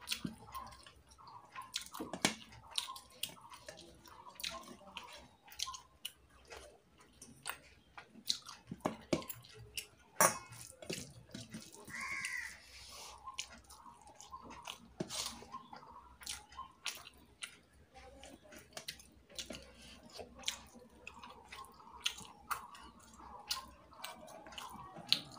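Wet squelching of rice and curry being mixed by hand in a steel bowl, with sharp clicks of fingers and a ring against the metal, and chewing between.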